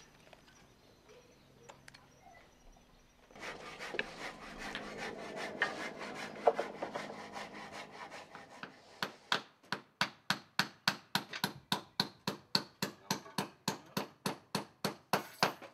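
Hand saw cutting through wood: a few seconds in, rough scraping begins, then settles into a steady run of strokes at about four a second.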